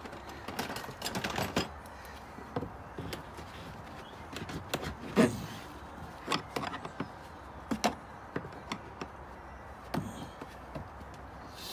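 Scattered clicks and knocks from gloved hands working at the trim and fittings in a car's cargo area, with the loudest knock about five seconds in.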